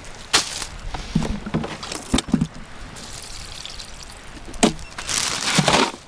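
A plastic cooler being handled as a fish is put in: several sharp knocks and clunks of the lid and the fish against the plastic. About a second of loud rushing, pouring noise comes near the end.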